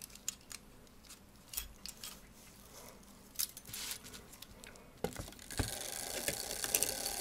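Light metallic clinks and taps as an Ansonia brass clock movement and a steel mainspring clamp are handled and set down. From about five seconds in comes a steady run of rapid fine clicking from work on the movement.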